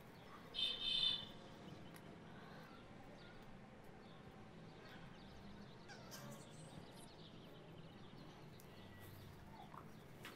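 Faint room tone with a low steady hum. About half a second in comes a short, high-pitched animal chirp in two quick parts, like a bird call.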